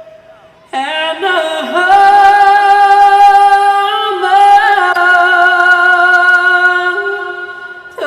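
Music: long held notes, sung, over sustained accompaniment. They come in about a second in, slide into a steady pitch and fade near the end.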